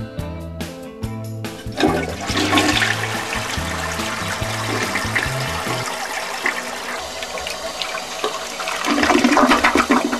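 A toilet flushing: a rush of water that starts about two seconds in and swells again near the end, over background music whose bass line stops about six seconds in.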